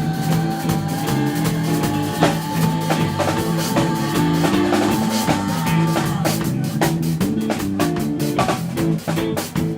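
A live rock band playing, with a drum kit and bass under a long held note that slowly rises and stops about six seconds in; the drum hits come thicker after that.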